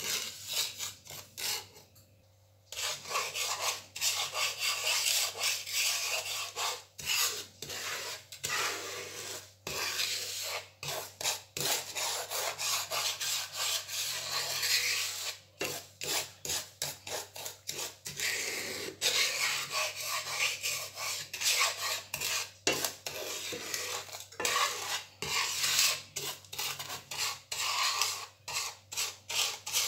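Wooden spoon stirring dry granulated sugar in a nonstick frying pan: a gritty scraping and rasping in quick repeated strokes, with a short break about two seconds in. The sugar is still dry and unmelted, at the stage of being heated until it melts.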